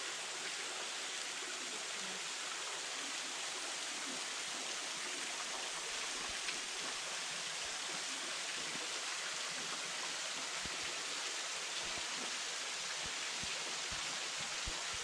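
Steady rush of flowing water, an even hiss that holds at one level without let-up.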